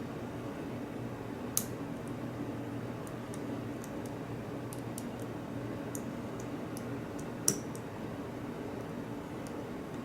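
Hook pick working the pins of a pin-tumbler padlock under tension: faint scattered metallic ticks, with two sharp clicks about a second and a half in and again about seven and a half seconds in, over a steady low hum.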